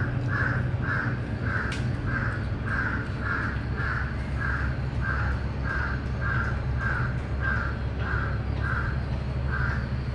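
A crow cawing over and over, about two short caws a second, stopping near the end, over a steady low rumble.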